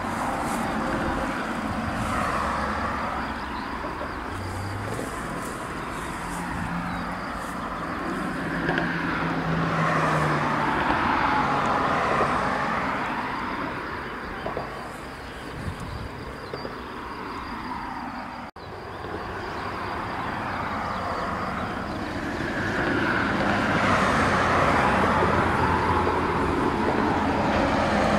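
PKP class SU45 diesel locomotive hauling passenger coaches past, its engine running steadily under the noise of the train rolling along the track. The sound drops out for a moment about two-thirds of the way through and comes back louder near the end.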